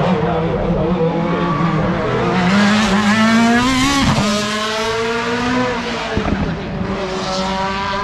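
Open-cockpit prototype race car at full throttle, its engine note rising as it approaches, then dropping sharply in pitch as it passes close by about four seconds in. It pulls away up the hill with a gear change about two seconds later, the note climbing again.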